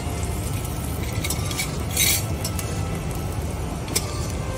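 A utensil scraping and clinking against a large metal karai as onions are stirred and fried over a wood fire, with a short scrape about two seconds in and a sharp clink near the end, over a steady low rumble.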